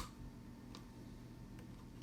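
A few faint, light clicks and taps of small parts and tools being handled during wiring work: one under a second in and two more near the end.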